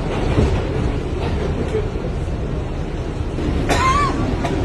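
Steady low rumble like a vehicle in motion, with one brief loud burst that rises and falls in pitch a little under four seconds in.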